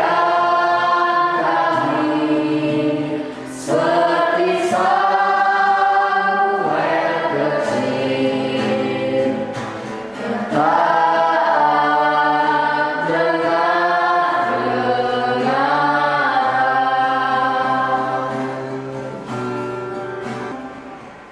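A group of voices singing a Christian worship song together, in long held phrases. The singing fades out near the end.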